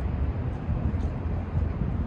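Outdoor city street ambience: a low, uneven rumble with no clear single event.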